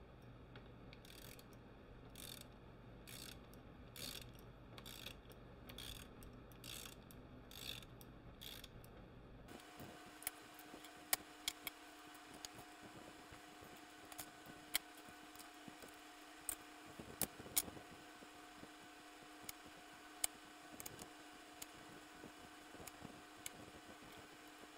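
Hand ratchet wrench turning a bolt inside a tractor transmission case: about nine strokes, roughly one a second, each a short burst of pawl clicks. About nine seconds in the background changes abruptly to a faint steady hum with scattered sharp clicks.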